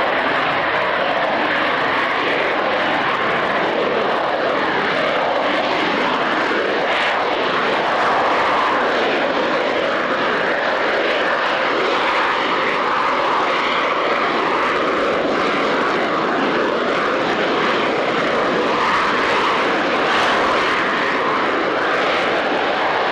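Harrier jump jet's Rolls-Royce Pegasus turbofan running at high power as the aircraft hangs in a slow, nose-up hover: a loud, steady jet roar with a faint wavering whine in the middle.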